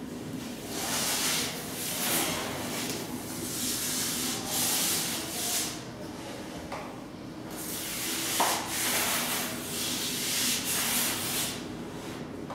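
Rough rubbing strokes across a surface, coming irregularly about once a second with a lull in the middle, over a faint steady hum.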